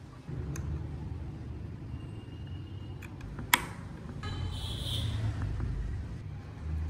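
Handling noise as hands fit parts into a wooden model truck: a low rumble, with one sharp click about three and a half seconds in.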